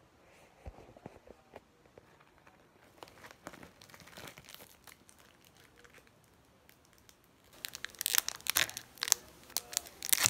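Clear plastic bag crinkling as it is handled. Faint rustles and light ticks at first, then loud, dense crinkling for the last few seconds.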